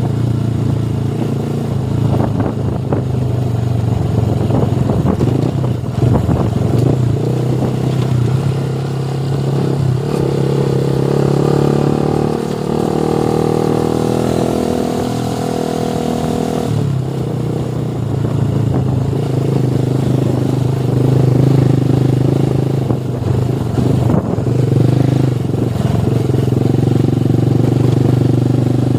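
Motorcycle engine running steadily while riding. In the middle a higher engine tone joins in, then drops away abruptly about two thirds of the way through.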